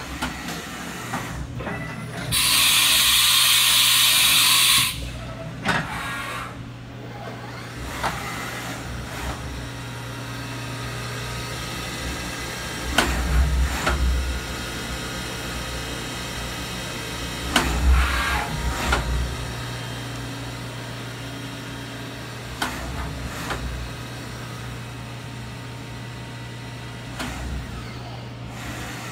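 Haas CNC vertical mill running a drilling program, its spindle driven by a Magnetek GPD 503 drive, with a steady electrical hum. A loud hiss lasts a couple of seconds near the start, and heavier low rumbles come twice around the middle, with scattered clicks of the machine moving.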